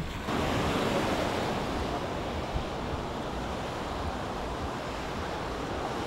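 Small waves washing onto a sandy beach in a steady hiss, with wind noise rumbling on the microphone.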